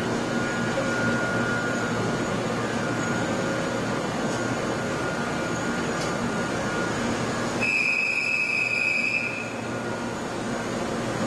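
Steady hum and hiss of a Tobu 100-series Spacia electric train standing at a station platform. About eight seconds in, a steady high-pitched beep sounds for about a second and a half.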